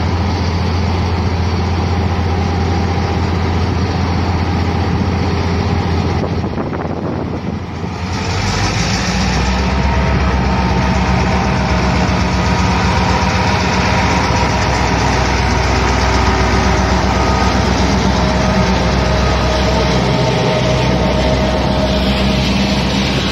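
TCDD DE 22000 diesel-electric locomotive's engine running as it pulls slowly past along the platform. About eight seconds in the note drops to a deeper, louder rumble that holds steady as the locomotive comes alongside.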